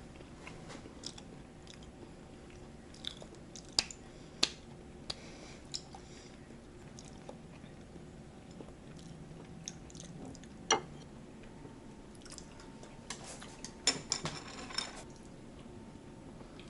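A person chewing raw opaleye sashimi, with scattered sharp clicks and taps, a tight cluster of them near the end.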